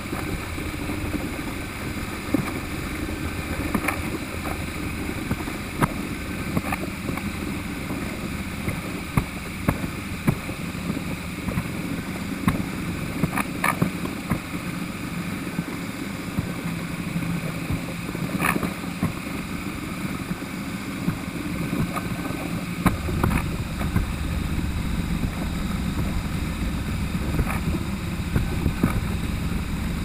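iRobot Roomba robot vacuum running on bare wooden floorboards: a steady, noisy whir of its motor and brushes, with scattered sharp clicks and knocks as it bumps into the walls. The low rumble grows louder about three-quarters of the way through.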